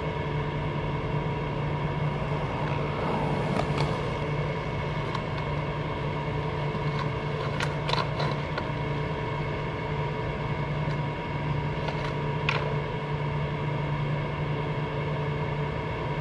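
A steady mechanical hum with several fixed pitches drones throughout. Over it, a skateboard rolls on concrete, and the wood and wheels hit the box in a few sharp clacks about halfway through and again about three-quarters in.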